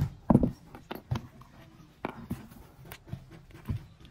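Handling clicks and knocks of a plastic multi-socket power strip as its top casing is worked loose and lifted off. The loudest knock comes about a third of a second in, with scattered lighter clicks after it.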